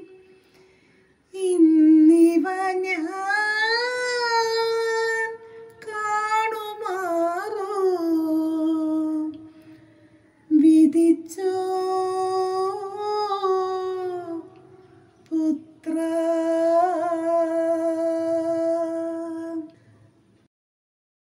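A woman singing a Malayalam devotional verse solo and unaccompanied, in four long held phrases with slight ornaments and short pauses between them.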